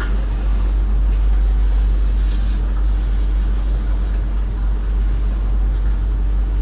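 Steady low hum of a stationary VIRM electric train, its onboard equipment running while it stands at a platform, with a couple of held tones through it.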